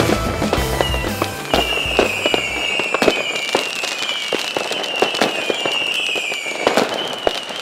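Fireworks sound effect, crackling pops with a string of short whistles that each slide slightly downward, over background music that stops about three seconds in.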